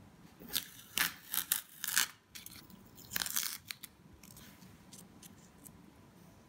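Masking tape crackling and tearing as strips are pulled and handled: several short, sharp crackles in the first half, then only faint handling.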